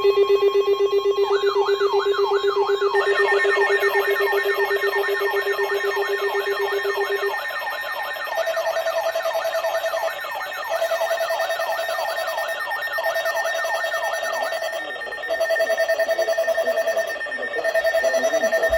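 Several electronic emergency alert tones sounding at once. There are steady tones, and a fast warbling tone that stops about two-thirds of the way through. From about eight seconds in, a beep of nearly two seconds repeats with short gaps. These are the alert signals ahead of a new warning, here a flash flood warning.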